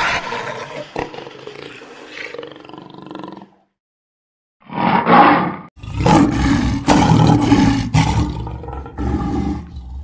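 A big cat growling for the first few seconds. After a short silence, a lion roars and growls loudly, with deep repeated calls through the second half.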